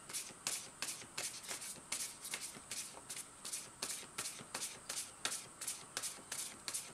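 Tarot deck being shuffled by hand, a steady run of crisp card strokes at about three a second, as another card is about to be drawn.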